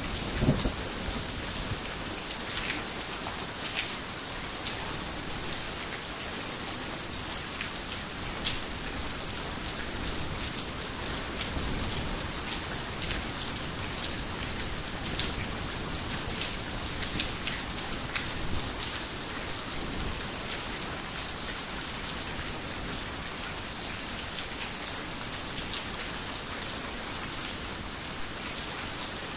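Heavy rain falling steadily, with scattered sharper drop taps. A thunderclap dies away in the first moments.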